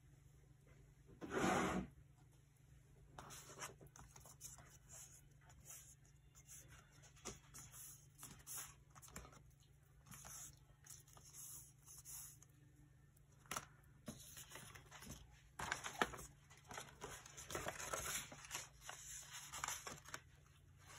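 Paper being handled and torn while junk journaling: intermittent rustling and tearing in short bursts, busier near the end, over a steady low hum. A louder half-second noise comes about a second and a half in.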